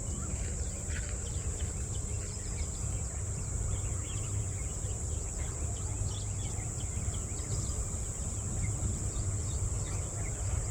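Insects droning steadily at a high pitch, with scattered short bird chirps and a low rumble underneath.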